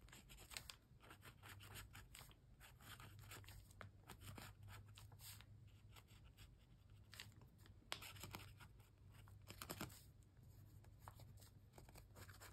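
Faint, quick scratchy strokes of a marker pen sketching short lines on a paper journal page, in irregular bursts.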